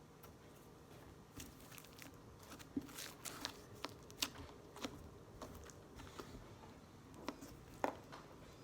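Slime being squeezed and worked by hand, giving an irregular run of sticky clicks and small crackling pops as trapped air breaks out.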